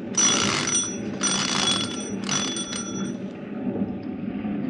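Ship's engine-room telegraph bell ringing in three bursts of about a second each, answering the order to stop the engines, over a steady low hum.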